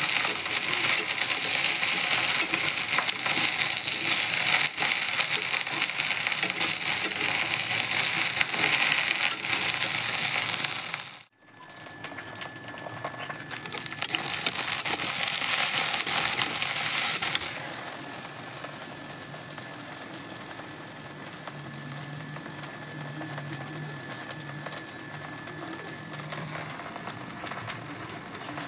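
Sliced okra sizzling as it shallow-fries in hot oil in a pan. The sizzle cuts out abruptly for a moment about eleven seconds in and then comes back. After about seventeen seconds it drops to a much quieter hiss with a faint steady whine.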